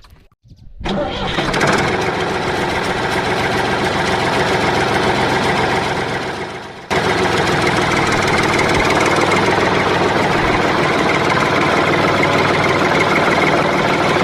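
A small motor runs steadily. It starts about a second in, dies away around six seconds, then starts again abruptly about seven seconds in and keeps running.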